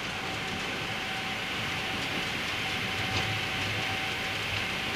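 Boeing 777 flight deck during the takeoff roll at takeoff thrust: the engines and the wheels rolling on the runway make a steady rumble with a constant hiss and a thin steady tone. A few light knocks come through from the gear.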